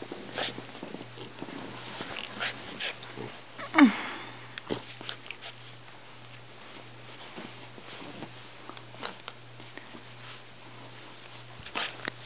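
Two dogs play-wrestling: a run of short snuffles and soft mouthing clicks, with one louder short vocal sound that falls in pitch about four seconds in.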